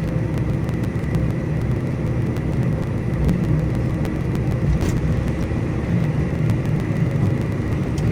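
Steady engine drone heard inside the cab of a farm vehicle driving slowly through a harvest field, with a faint steady whine above it.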